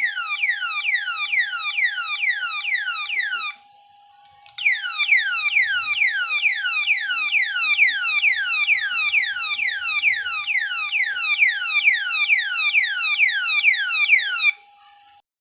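Electronic siren of a motorcycle alarm lock sounding in rapid falling sweeps, about three a second. It breaks off for about a second near four seconds in, then sounds again for about ten seconds and stops near the end, with a faint steady tone underneath. It is going off after a water test, showing the lock still works wet.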